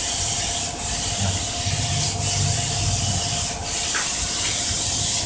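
A cloth rag soaked in paint thinner rubbed back and forth over a floor tile to wipe off spray-paint overspray: a steady scrubbing hiss that eases off briefly about every second and a half as the strokes change.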